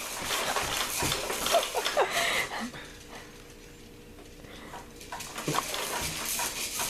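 A baby's short squeaky vocal sounds and babble, with a quieter pause in the middle.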